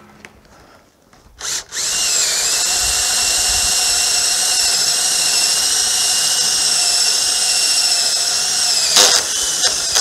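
Cordless drill boring a 1¼-inch hole through the wall of a plastic 55-gallon barrel. A short burst about a second and a half in, then a steady high motor whine for about seven seconds, stopping with a couple of brief bursts near the end.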